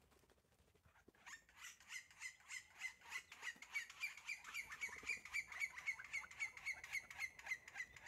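Green-barred woodpecker (Colaptes melanochloros) giving its long call: a rapid, even series of sharp notes, about five a second. It starts about a second in and grows louder.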